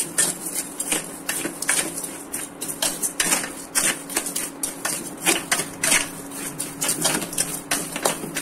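Metal spatula scraping and stirring garlic cloves through hot sand in a stainless steel kadai, dry-roasting them: a gritty scraping and rattling in quick, irregular strokes, several a second. A steady low hum runs underneath.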